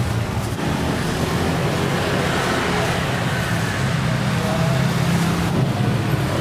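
Steady rumble of road traffic, with an even background hiss and no distinct events.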